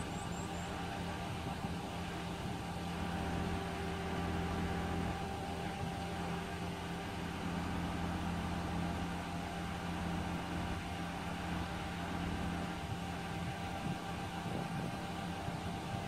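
Concrete pump truck running steadily with a constant hum while its hydraulic boom is being repositioned.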